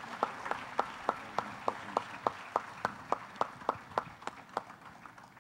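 Audience applauding, with one set of sharp claps standing out in a steady rhythm of about three a second, fading away near the end.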